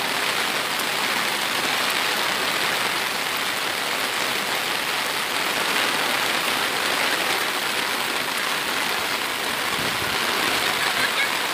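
Heavy rain pouring down, a steady even hiss with no let-up.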